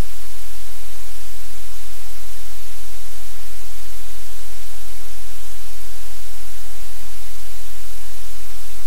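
Loud, steady hiss like static, with a low hum underneath, unchanging throughout.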